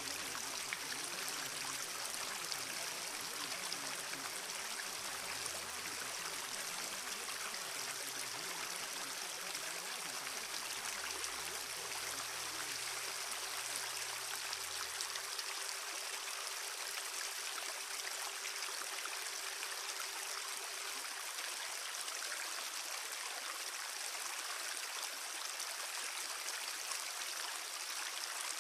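Steady rushing water sound like a flowing stream, unbroken throughout. Under it, a faint low drone fades out about halfway, and a faint steady hum stops about three quarters of the way in.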